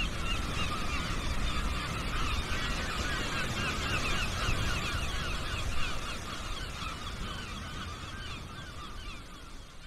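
Football stadium crowd noise from the match broadcast: a steady din with many overlapping short, high calls, fading out over the last few seconds.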